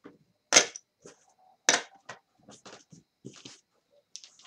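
Clay casino chips clicking together as they are picked up and set down in stacks on a felt craps table. Two sharper clinks come about half a second and a second and a half in, then a run of lighter clicks.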